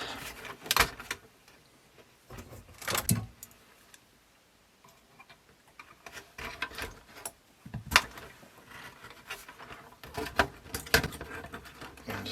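Scattered clicks, taps and knocks from hands and small tools working on a cassette deck mechanism while a drive belt is worked onto its motor pulley, with the loudest knocks about a second in, three seconds in, and near eight and eleven seconds.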